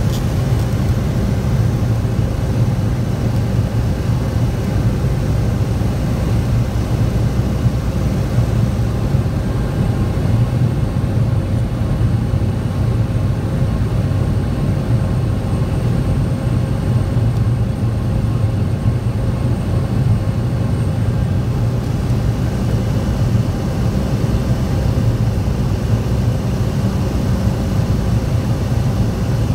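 Cessna 208 Caravan's single turboprop engine and propeller droning steadily, heard from inside the cockpit, with a constant low hum and a thin steady whine over it.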